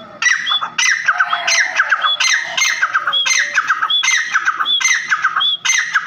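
Grey francolin giving its loud repeated call: a short phrase of sharp, high notes, given about ten times in quick, even succession.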